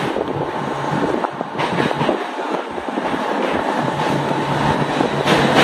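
Mumbai suburban local electric train running, heard from its open doorway: a steady rumble and rattle of wheels and carriage, with a few sharp clicks.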